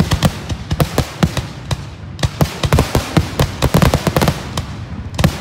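Fireworks finale barrage filmed close up: shells launching and bursting in rapid, irregular succession, many sharp bangs a second.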